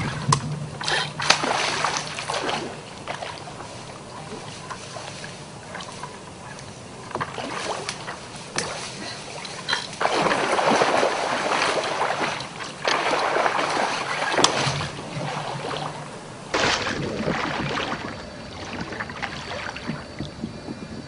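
Water splashing and sloshing beside a wooden boat in several bursts of a second or two while a hooked catfish is fought on the rod, with sharp knocks in between.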